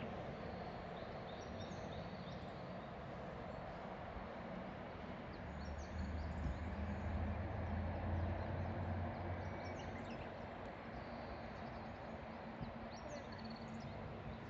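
River water flowing steadily, with small birds chirping now and then over it. A low rumble swells up in the middle and fades again after a few seconds.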